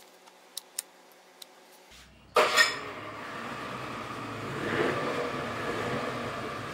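A few light metallic clicks of hand tools on the outboard's metal parts, then a sudden louder metal clatter with a short ring about two and a half seconds in, followed by a steady noisy workshop background.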